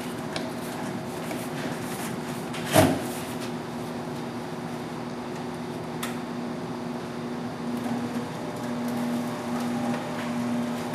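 Hollymatic HVT-30 vacuum tumbler running, its motor humming steadily as the drum turns the meat and marinade at about half speed. One sharp knock comes about three seconds in.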